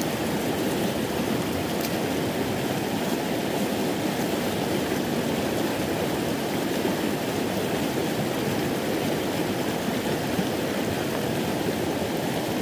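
White water pouring over a low spillway on a creek: a steady, even rush of water.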